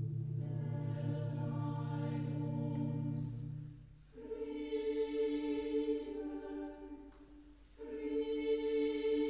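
Four-part mixed chamber choir singing a slow German sacred text in long sustained chords. It sings three phrases, with breaths about four and seven seconds in. A low organ note is held under the first phrase and stops about four seconds in.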